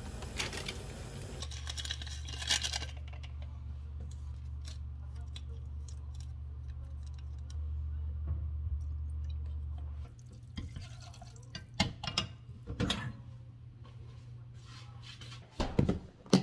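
Instant noodles simmering in a little water in a saucepan and being stirred, a bubbling hiss that stops about a second and a half in. Then a steady low hum with scattered light clicks, and a plastic food container knocked down on a countertop near the end.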